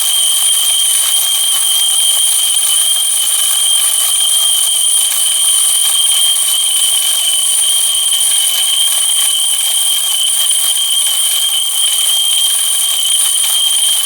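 The bell built into a clockwork tinplate fairground ride ringing continuously and steadily as the wound-up ride runs, much like an alarm clock.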